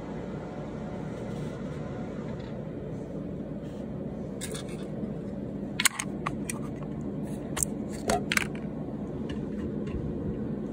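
A fan running with a steady hum, with a handful of sharp clicks and taps in the middle, the loudest about halfway through.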